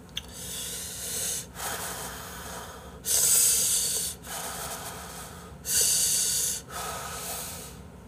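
Breathy blowing on a clump of hot ramen noodles held up on chopsticks, to cool them: a series of long, airy blows, each about a second, two louder ones about three and six seconds in.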